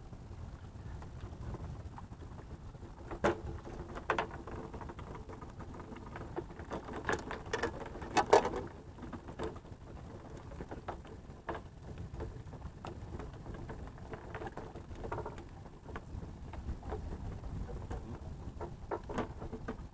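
Wind rumbling on the microphone, with scattered knocks, clicks and rattles from gear being handled on a wooden platform deck. The loudest knocks come as a cluster about seven to eight seconds in.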